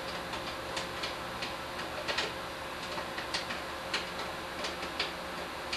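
Scattered sharp clicks and ticks, several a second at irregular spacing, over a steady low hum.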